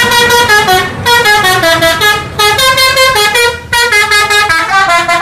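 Tour bus's musical 'telolet' horn playing a quick tune of short stepped notes, loud, in several phrases with brief breaks between them.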